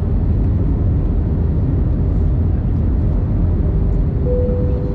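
Steady cabin noise of an Airbus A321neo on approach, heard from a window seat over the wing: a deep rumble of engines and airflow. A faint steady hum comes in near the end.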